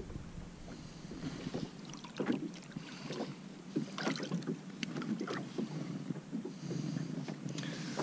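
Small splashes and water lapping beside a plastic Hobie fishing kayak, with scattered light knocks and taps on the hull, as a small shark is lowered back into the water.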